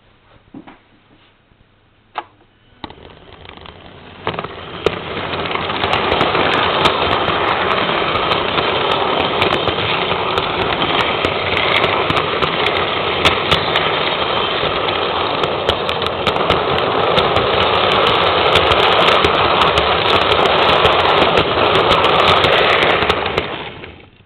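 A model train's motor and wheels running on the track, heard from on board the train: the noise builds from a standstill a few seconds in to a loud, steady running sound with many sharp clicks, then dies away near the end.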